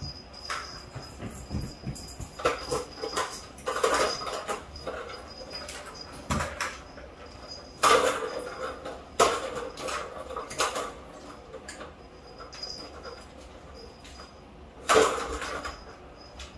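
Plastic ball rattling and rolling in the tracks of a tiered plastic track-ball cat toy as a kitten bats at it, with several sudden clacks, the loudest about eight and fifteen seconds in.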